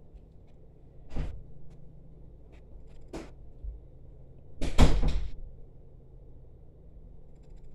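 Three hard knocks or clacks of objects being handled, the loudest a quick cluster of knocks about five seconds in, over a low steady hum.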